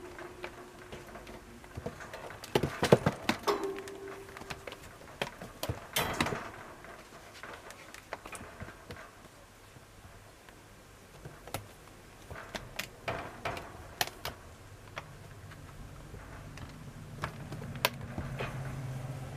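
A kitten batting and chasing a small tennis ball inside a wire pet pen: irregular knocks, taps and rattles of the ball and paws against the floor and bars, busiest about three seconds in. A low steady hum comes in about three quarters of the way through.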